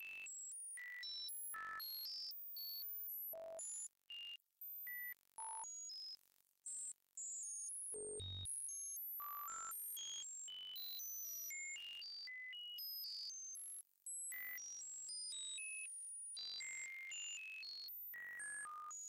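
Computer-generated sine tones at random frequencies, the audio that draws Lissajous curves on an oscilloscope: pure beeps that jump to a new pitch two or three times a second, mostly high-pitched, with a brief low tone about eight seconds in and a few short gaps.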